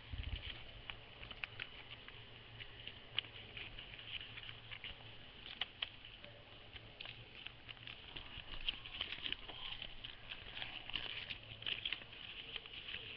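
Sheets of printer paper rustling and crackling as they are folded and creased by hand, a run of irregular small crackles and clicks.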